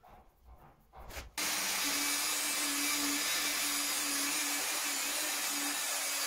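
Faint hand rubbing, then about a second and a half in a rotary polisher with a foam buffing pad cuts in at full speed. It runs steadily with a constant motor hum, buffing the epoxy finish of a walnut tabletop.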